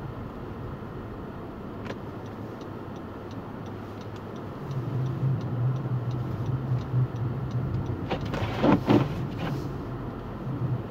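A motor vehicle's engine hums low under steady noise, the hum coming up about five seconds in, with a louder rush of noise a little over eight seconds in.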